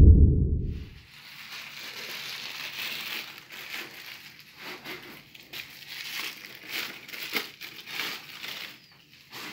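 Packaging crinkling and rustling in uneven bursts as statue parts are handled and unwrapped for assembly. A deep low rumble, the loudest sound, fades out about a second in.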